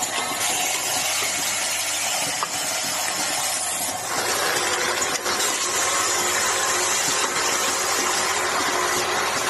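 Automatic aerosol-cap assembly machine running: a steady hiss, typical of its pneumatic air lines and cylinders, with a few faint mechanical clicks. It gets somewhat louder about four seconds in.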